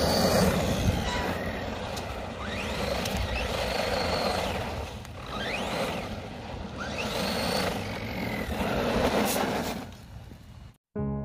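Redcat Shredder RC monster truck's brushless electric motor whining up in pitch as it accelerates hard several times, over the rush of its tyres on loose dirt. The sound cuts off just before the end.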